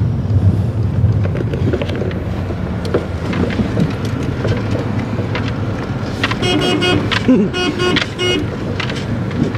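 Steady engine and road rumble inside a car's cabin while driving slowly, with a vehicle horn sounding twice, about six and a half and seven and a half seconds in.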